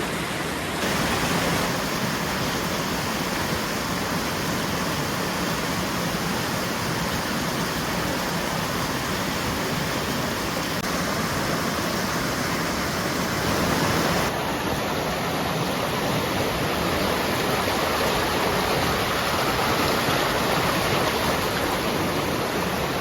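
Fast-flowing stream rushing steadily, with a slight change in tone about 14 seconds in.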